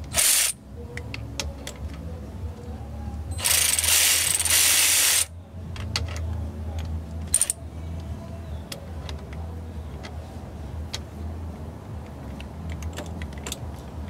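Hand ratchet clicking as the engine's crankshaft and timing chain are turned over by hand toward top dead centre: a brief burst of fast ratcheting at the start, a longer burst lasting almost two seconds a few seconds in, and scattered single clicks. A steady low hum runs underneath.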